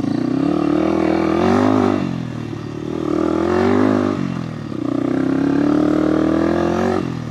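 Motorcycle engine pulling in a low gear, its revs rising and dropping back three times as the throttle is opened and eased.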